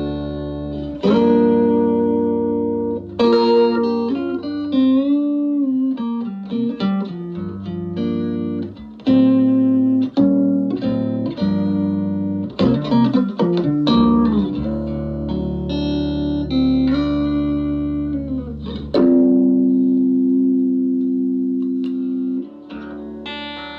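Electric guitar played through a Davoli D531T 10-watt push-pull valve amplifier: single notes with string bends, and chords left ringing for several seconds.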